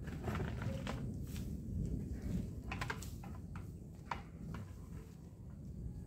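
Scattered light taps, rustles and footsteps as a bucket of soil is tipped out onto the ground, over a steady low rumble of wind on the microphone.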